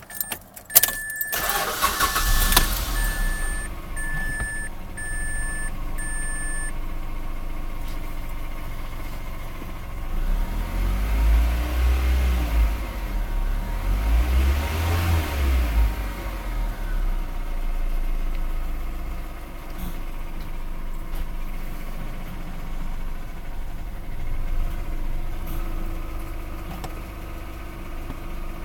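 Mazda Protege engine started about a second in, then running, with a dashboard chime beeping in pulses for the first several seconds. The engine is revved up and back down twice in the middle, then settles to idle, making a knocking noise that the owner cannot place and wonders is an alternator bearing.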